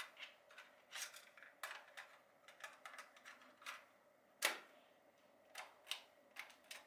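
Small plastic clicks and knocks of a cassette being fitted into a portable cassette player's tape door and the door pushed shut, a dozen or so irregular taps with one louder click a little past halfway.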